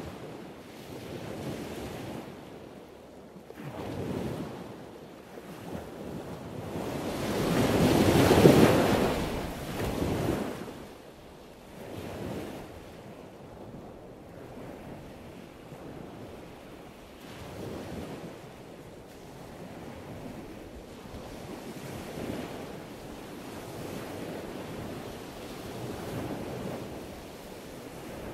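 Ocean surf washing in and out in swells every couple of seconds, with one much bigger wave building and breaking about eight seconds in. It is a surf recording edited to sound like a dramatic incoming tide.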